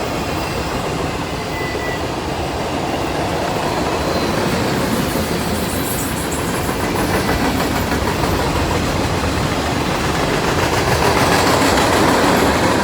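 Freight cars of a CSX manifest train rolling past: a steady rumble and clatter of wheels on rail, growing slightly louder near the end.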